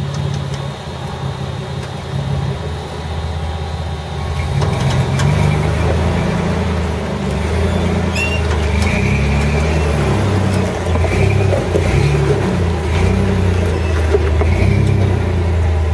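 Lifted Suzuki Samurai's engine pulling under load as it crawls up a rock ledge, the throttle rising and falling and the engine getting louder about four seconds in.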